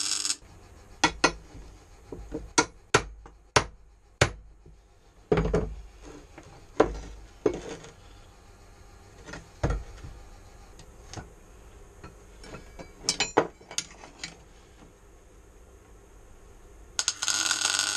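About a dozen irregular sharp metallic knocks and clinks of steel being tapped and handled. Near the end comes a second-and-a-half crackling hiss of a welding arc laying down a tack weld.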